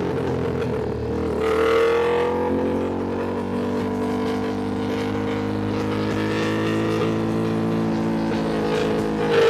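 Ducati Panigale V2's V-twin engine running under way at fairly steady revs. The pitch rises briefly about a second and a half in as throttle is rolled on, then holds steady.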